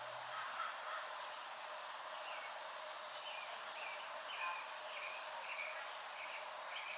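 A bird calling in a quick series of short, repeated chirping notes, about two a second, starting about two seconds in, over a steady background hiss.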